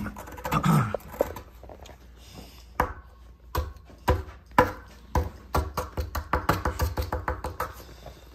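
Small plastic hammer tapping a plastic chisel into a crumbly excavation dig block: a few separate knocks, then a quick run of about four or five taps a second that stops shortly before the end. A brief vocal sound near the start.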